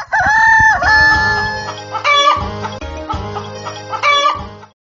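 A rooster crowing over intro music with a steady beat; the music stops shortly before the end.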